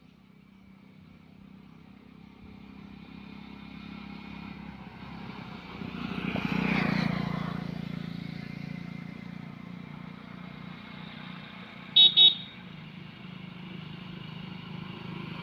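A motor vehicle's engine on the road grows louder as it approaches and passes about six and a half seconds in, then keeps running. A horn gives two short, loud beeps about twelve seconds in.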